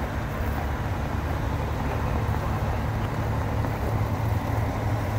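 Fire truck's engine idling steadily, a low hum with no change in speed.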